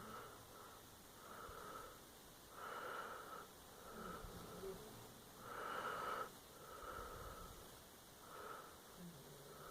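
Sleeping dog snoring: a regular series of in-and-out snoring breaths, about one every second and a half, the strongest about six seconds in.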